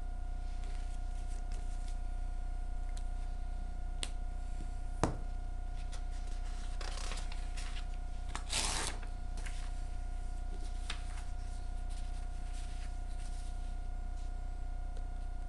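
Loose sheets of paper being picked up and handled on a table, rustling loudest about eight and a half seconds in. A few sharp taps come before, the clearest about five seconds in, over a steady hum.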